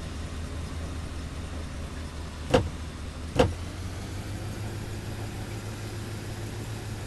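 A Range Rover's engine running steadily at low revs, with two sharp knocks a little under a second apart midway through. After the knocks the engine note rises slightly.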